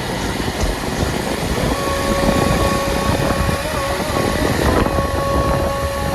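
Motorcycle on the move: wind rushing over the microphone, with a steady engine tone coming in about two seconds in and holding, briefly broken near the end.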